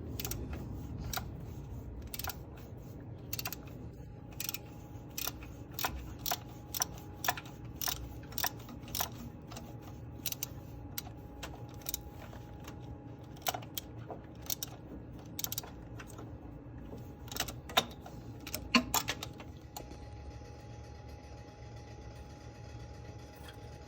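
Irregular sharp metallic clicks of a ratchet and T30 Torx bit working loose the bolt of a BMW E46 crankshaft position sensor, about one or two clicks a second; they stop about twenty seconds in, leaving a steady low hum.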